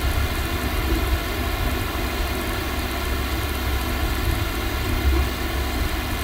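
Steady hiss over a low rumble, with a faint steady hum: the background noise of an open microphone, with no speech.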